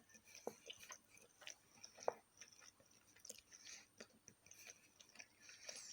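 Faint chewing and mouth sounds of a person eating sausage, with scattered soft irregular clicks.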